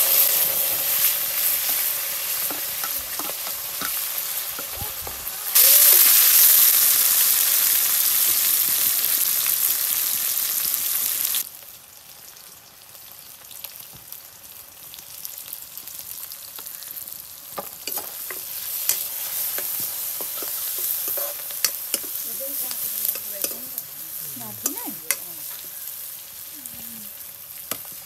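Vegetables sizzling in hot oil in a metal wok, the sizzle loud as they go in and louder still for about six seconds in the middle, cutting off abruptly. After that the sizzle is quieter, with the clicks of a spoon against the pan as it is stirred.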